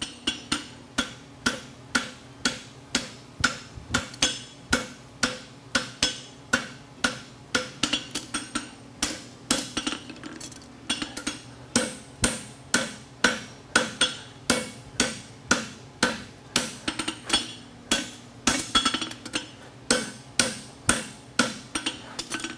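Hand-forging hammer blows on a red-hot steel draft horseshoe against an anvil, in an even rhythm of about two blows a second, each with a short metallic ring from the anvil.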